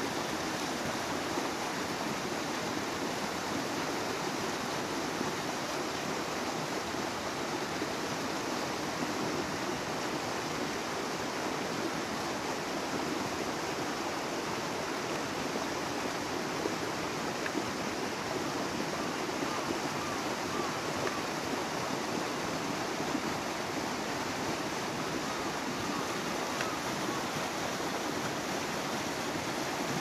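Mountain river rushing steadily over boulders and small rapids.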